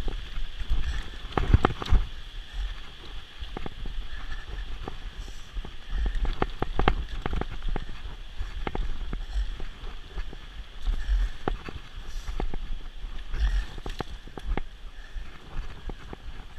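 Mountain bike rattling and clicking over a rough, rocky dirt trail, with wind buffeting the microphone in a low rumble. A steady rushing hiss, from the rain-swollen river below, runs underneath.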